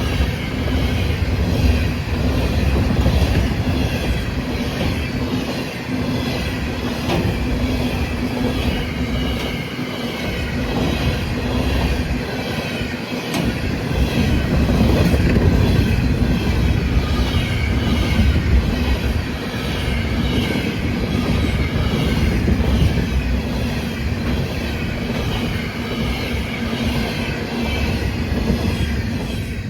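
Train running by on the CN Kingston Subdivision main line: a steady loud rumble with a regular rhythm of wheel clicks.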